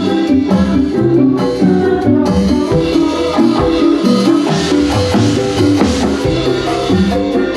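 Upbeat music with a repeating bass line, pitched melody notes and busy percussion, playing without a break.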